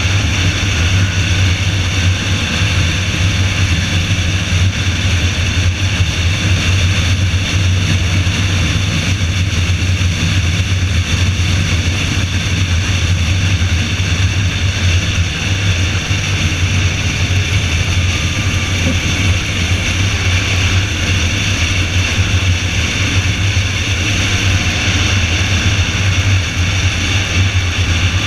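A car running steadily at speed on a track: a constant low engine drone mixed with road and wind hiss.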